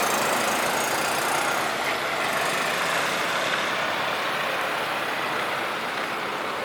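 Motor-vehicle traffic noise: a steady rush of a vehicle running close by that slowly fades.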